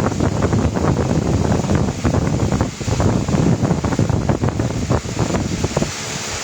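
Loud, irregular rumbling and crackling noise on the microphone, with no clear tone or rhythm.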